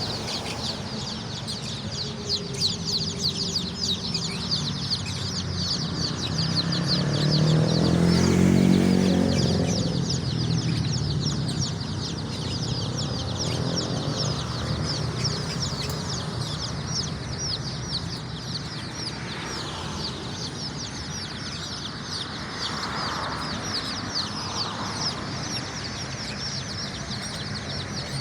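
A large batch of native ayam kampung chicks peeping constantly, a dense chorus of short high peeps. About six to eleven seconds in, a louder low sound swells and fades beneath it.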